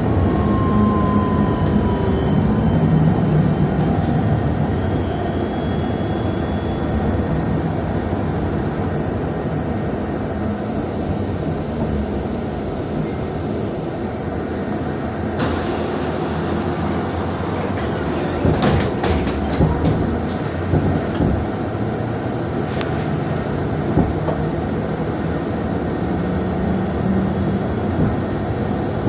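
Inside a UTTZ-6241 'Gorozhanin' trolleybus on the move: steady running noise from the electric drive and tyres, with a whine that falls in pitch near the start. About midway there is a hiss of about two seconds, followed by a series of rattles and knocks from the body.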